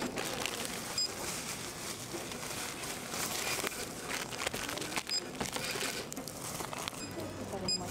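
Plastic grocery packaging crinkling and rustling as packets are handled on a checkout counter, with scattered small clicks. Three short high beeps sound through it.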